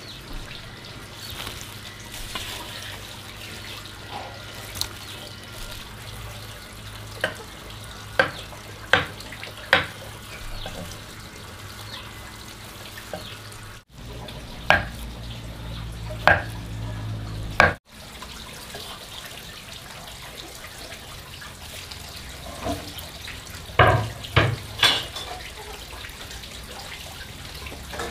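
Kitchen work: a steady wash of running water, like a tap into a sink, with scattered sharp knocks and clinks of utensils. The sound cuts out briefly twice, about halfway through.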